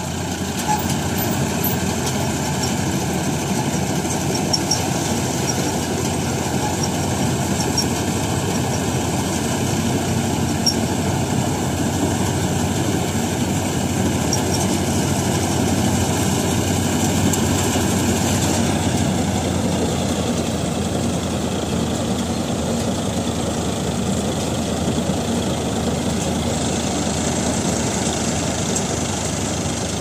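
Tractor-mounted Satnam mini combine harvester running steadily as it cuts mustard: a loud, dense, unbroken machine noise from the tractor engine and the harvester's working parts. Its tone shifts slightly about two-thirds of the way through.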